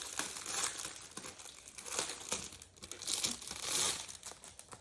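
Packaging crinkling and tearing as it is opened by hand, in several rustling swells.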